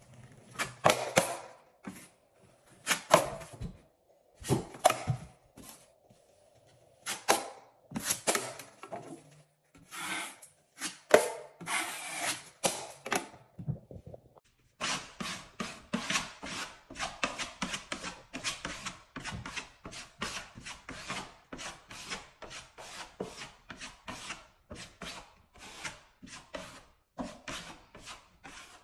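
Steel drywall knife scraping over joint compound on a wall patch, in separate strokes a second or two apart. After a short pause about halfway, a smaller putty knife scrapes the patch quickly, about two or three strokes a second.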